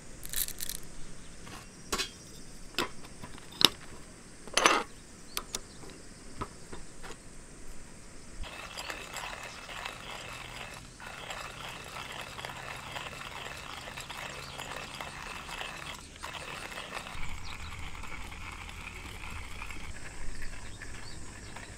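Coffee beans dropped into a hand coffee grinder, a few separate clicks and rattles, then from about eight seconds in the grinder's crank being turned, crushing the beans in a continuous grating grind.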